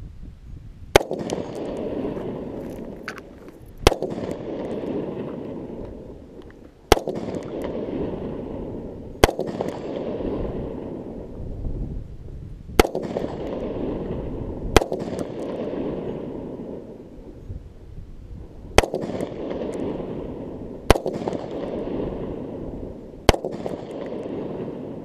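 Nine shots from a Sig Sauer 516 Patrol, a gas-piston AR-15-style rifle in 5.56 mm, fired at a slow, unhurried pace two to four seconds apart. Each sharp crack is followed by a long echo that fades over about two seconds.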